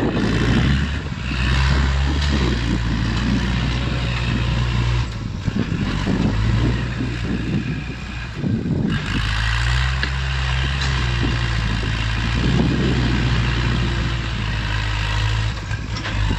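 Kubota tractor's diesel engine running steadily under load as its front blade pushes loose soil, the engine note rising and falling slightly a few times.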